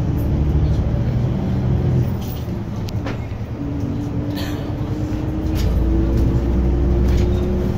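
Diesel low-floor city bus running on the road, heard from inside at the front: a steady low engine rumble, with a whine that rises slowly in pitch from about halfway through and a few light rattles.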